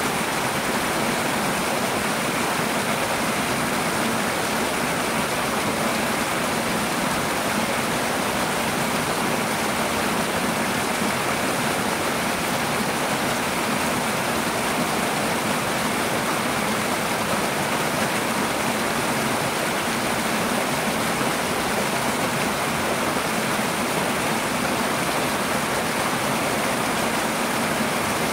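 Twin small waterfalls splashing over rocks into a shallow stream pool: a steady, unbroken rush of falling water.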